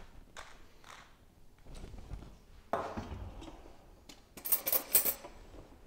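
Kitchen utensils and bowl being handled: a few light clicks, a sharp knock about three seconds in, and a short burst of rapid crackling clicks near the end.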